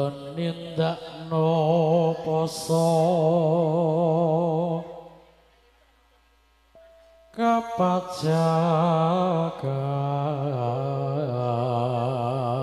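A man singing a slow Javanese pepeling (moral-religious song) into a microphone over a PA, drawing out long held notes with a wavering vibrato. He breaks off for about two seconds midway, then takes up the next long phrase.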